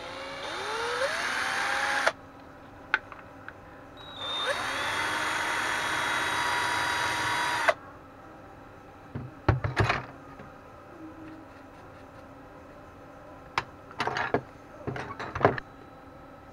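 Small cordless drill drilling two holes into a plastic fan blade to take weight off and balance the fan: two runs of about two and three seconds, each starting with a rising whine that then holds steady. Afterwards come a few short clusters of knocks and clatter.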